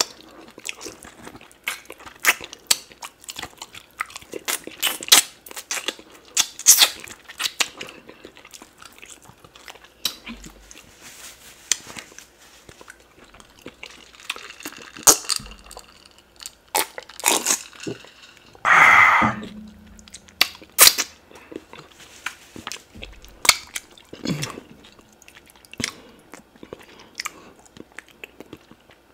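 Close-miked eating of oxtail pepper soup: wet chewing, lip smacking and sucking on oxtail meat and bone, with many sharp clicks and crunches. About two-thirds of the way through there is one loud breathy noise under a second long.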